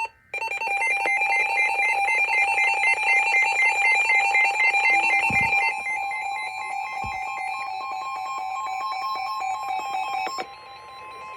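Emergency alert attention tones from several devices sounding at once: overlapping, rapidly pulsing two-tone beeps. Part of the sound drops out about halfway through, and most of it stops about ten seconds in, leaving a softer steady tone.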